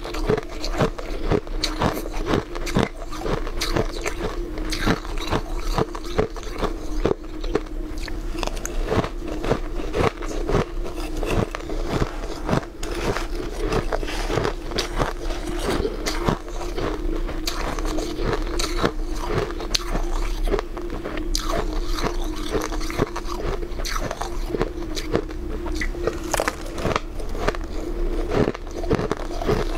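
Close-miked crunching and chewing of crushed ice, many crisp crunches a second, with a steady hum underneath.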